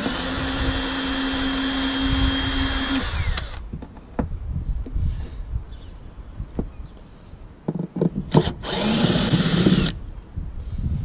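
Cordless drill-driver unscrewing fasteners from a caravan's wheel-arch trim: a steady motor whine for about three and a half seconds, then a few small clicks of handling. A second, shorter run follows near the end, its pitch wavering under load.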